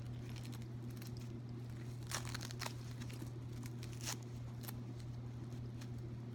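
Packaging being unwrapped by hand from a purse: scattered crinkles, with a few sharper crackles about two seconds in and again about four seconds in. A steady low hum runs underneath.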